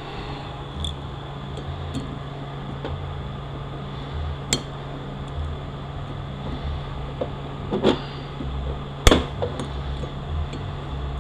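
Metal tools clinking and tapping while a bushing is worked out of a 6L80E transmission part: scattered light clicks, with sharp metallic knocks about four and a half seconds and about nine seconds in, the second the loudest. A steady low shop hum runs underneath.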